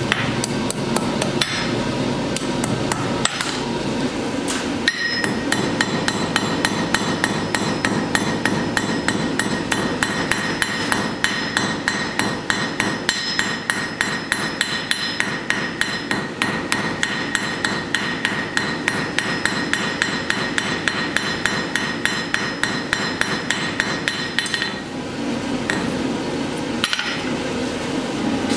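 Hand hammer striking hot steel on an anvil in a quick, steady rhythm of about three blows a second. The anvil rings with a high tone between blows. The blows thin out near the end.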